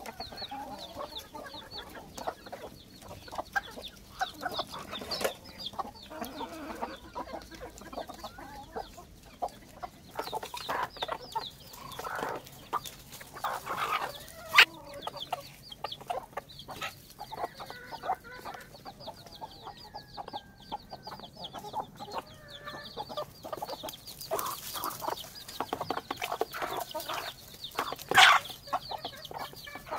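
Chickens clucking while they feed, with the quick high peeping of chicks throughout. Two louder sharp sounds stand out, one about halfway through and one near the end.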